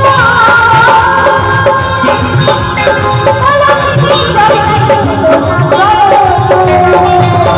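Loud live folk-style music through a PA system: a gliding melody line over drums and other percussion.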